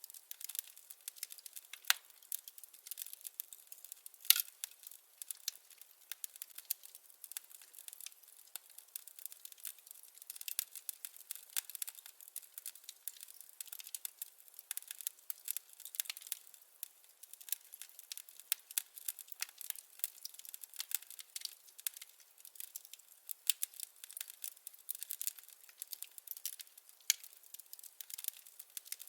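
Firewood crackling as it burns: a dense, irregular stream of small pops and snaps, with a few louder pops, the sharpest about 4 seconds in.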